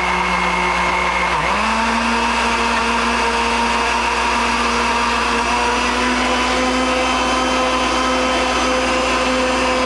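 Countertop blender running steadily, grinding soy sauce with ginger, onion and garlic into a marinade. About a second and a half in, its motor whine dips briefly, then rises and keeps creeping slowly higher.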